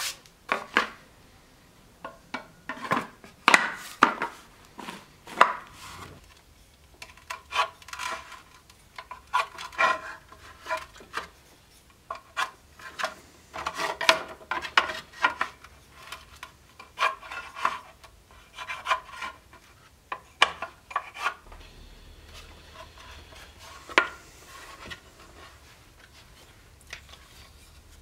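Wooden scabbard core being shaped with a small hand tool: clusters of short rasping, scraping strokes on the wood. Occasional sharp knocks come from tools and the workpiece handled on the workbench.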